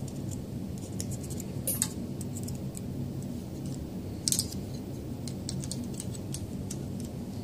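Small metallic clicks and scrapes of pliers and magazine-spring wire working against a plastic Magpul anti-tilt follower as the spring's end is forced into place, with two louder clicks about two and four seconds in, over a steady low hum.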